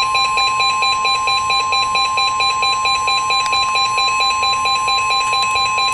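NOAA Weather Radio's 1050 Hz warning alarm tone, one steady loud pitch that signals an urgent warning is about to be read. A second alarm beep pulses rapidly over it, about seven or eight times a second.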